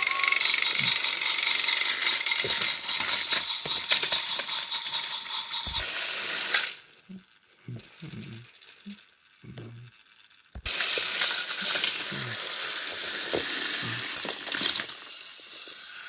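Battery-powered Thomas & Friends toy engines pushing head to head on plastic track, their motors and gears running with a dense rattling, grinding noise as the wheels slip. The noise stops for about four seconds midway, leaving a few soft knocks, then starts up again.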